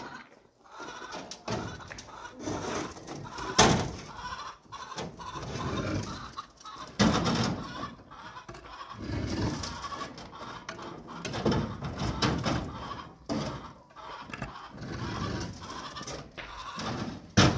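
A flock of sheep bleating, many calls overlapping one another, with a few sharp knocks among them.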